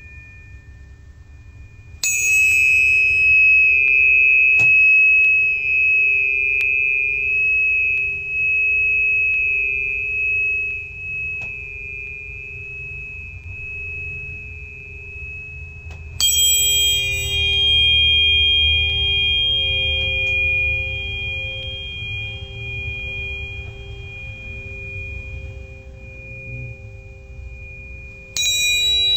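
Tuning forks for sound healing, struck three times: about two seconds in, about sixteen seconds in, and just before the end. Each strike rings on as a bright high tone over a lower one and fades slowly.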